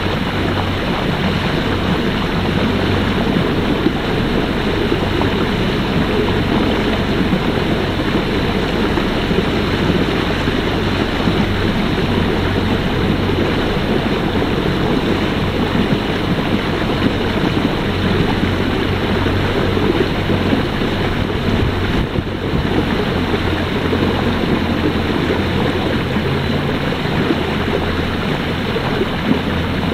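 Boat under way on open water: a steady motor hum under the rush of water along the hull and wind buffeting the microphone.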